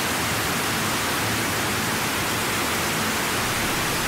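Loud, steady hiss of noise like static, even across all pitches and unchanging, with no clicks in it.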